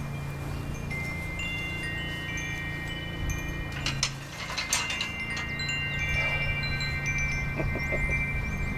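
Wind chimes ringing, several long-held notes at different pitches overlapping and starting one after another, with a few short metallic clinks about four to five seconds in over a steady low hum.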